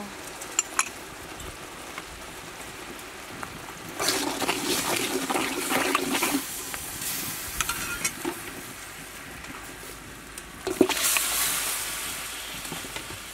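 Dark soy-and-oyster-sauce mixture bubbling and sizzling in a metal pot, with a ladle stirring it for a couple of seconds about four seconds in. Near the end a sudden splash and louder sizzle as raw pork intestines go into the hot sauce.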